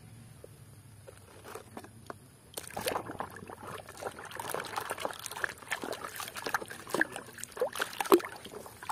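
Muddy water in a plastic basin being sloshed and splashed by a hand scrubbing a toy dump truck, with many small clicks. It starts about two and a half seconds in, after a quiet start.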